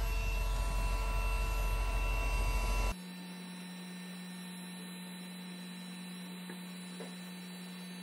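Cordless heat gun running steadily, its fan blowing with a steady whine, while it shrinks a heat-shrink butt splice onto the wires. About three seconds in the sound cuts abruptly to a quieter, steady low hum.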